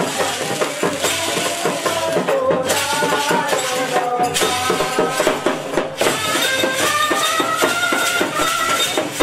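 Lively folk dance music: a fast, steady beat of jingling, tambourine-like percussion under a wavering melody line that climbs higher in the second half.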